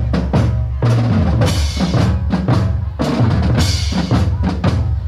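School drum band playing: marching drums strike a steady beat about twice a second, over low brass notes from sousaphones, with bell lyres struck by mallets.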